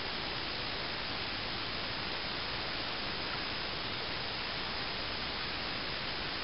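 A steady, even hiss with no changes in level.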